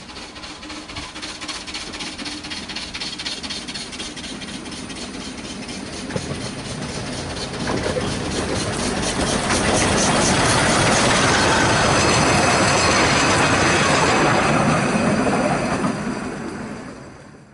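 A 2 ft gauge steam locomotive hauling a train approaches and passes close by, its exhaust beating in a rapid, even rhythm and growing loud as it nears, with wheels rolling on the rails. A high wheel squeal comes in on the curve as it draws level, before the sound is cut off at the end.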